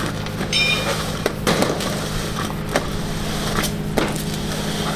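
Black corrugated plastic cable duct being pulled hand over hand, with scraping and rubbing knocks from the ribbed plastic and a brief squeak under a second in, over a steady low hum.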